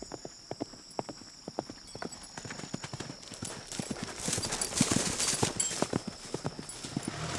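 Hoofbeats of a ridden horse on a dirt track, a run of a few knocks a second, growing louder about halfway through as the horse comes close and passes.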